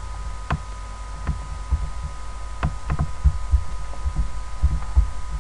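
Irregular computer mouse clicks and dull low thumps on the desk, about ten over five seconds, while a note is dragged around the screen, over a steady thin whine.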